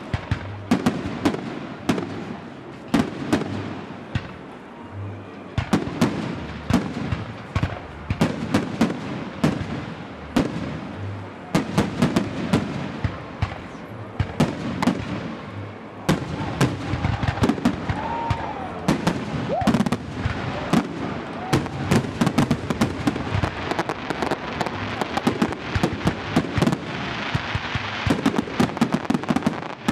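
Aerial fireworks display: shells bursting in a run of sharp bangs and crackling, the bangs coming thicker and faster near the end.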